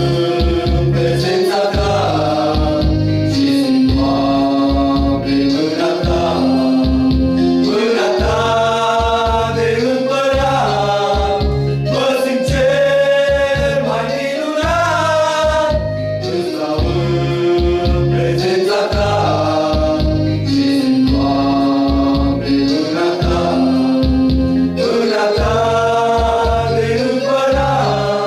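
Several men singing a song together, accompanied by an STK-520 electronic keyboard played through a loudspeaker, with a steady bass-and-chord rhythm under the voices.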